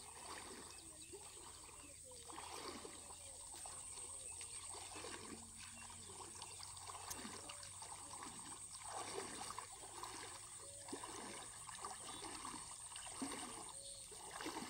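Shallow water sloshing and splashing as a man wades and a hooked black snakehead splashes at the surface on the fishing line, in irregular splashes about once a second.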